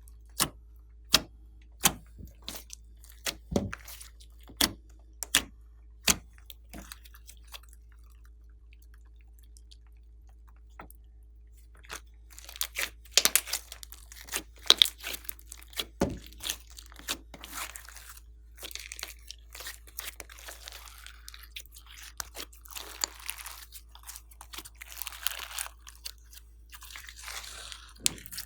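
Slime being squeezed and poked by hand. It starts with sharp pops about twice a second, goes quieter for a few seconds, then turns into dense crunching and crackling.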